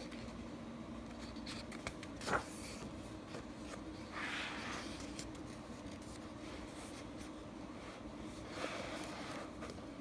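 Pages of a large softcover coloring book being turned and smoothed by hand: soft paper rustles, once about four seconds in and again near the end, with a light tap about two seconds in, over a faint steady room hum.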